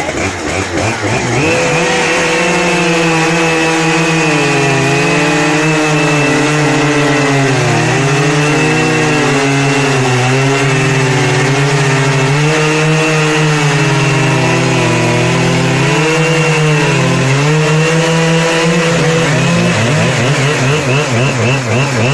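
Chainsaw engine revving up to full throttle about a second in and held there, its pitch sagging several times as under cutting load, then easing off near the end.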